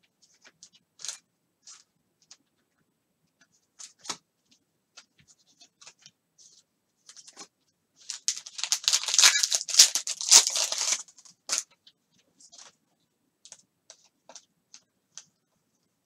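A foil trading-card pack being torn open: a dense ripping about eight seconds in that lasts some three seconds, among scattered light clicks and rustles of the wrapper and cards being handled.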